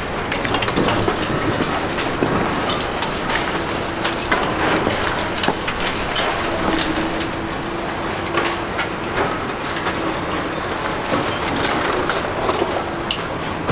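Heavy demolition machinery at work: a steady engine noise under continual irregular clattering and knocking of debris and metal, with a faint held hum through the middle.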